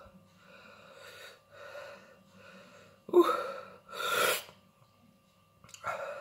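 A man breathing hard and gasping against the burn of a superhot chilli: faint breaths, then a loud voiced gasp about three seconds in, a forceful blowing exhale a second later, and another sharp breath near the end.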